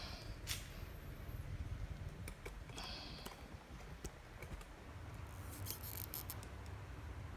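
Manual tile cutter being handled and adjusted: scattered light metallic clicks and rattles, with a quick run of clicks about six seconds in.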